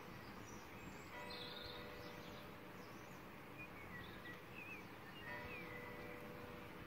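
Quiet outdoor ambience: a faint steady background hiss with a few short bird chirps about halfway through.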